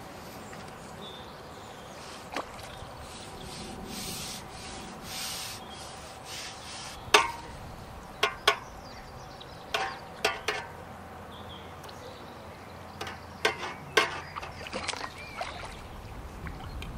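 Fishing tackle being handled while a fish is netted: a string of sharp clicks and knocks, with rubbing and rustling between them.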